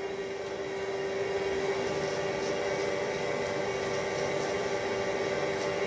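Corded electric hair clipper buzzing steadily as it cuts through hair on top of the head.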